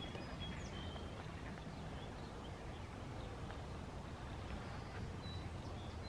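Outdoor woodland ambience: a low steady rumble with faint, short high bird notes over it, several in the first second and a couple more near the end.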